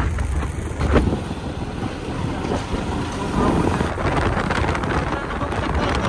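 Motorcycle riding at road speed: wind rushing over the microphone, with engine and road noise underneath. There is a brief louder bump about a second in.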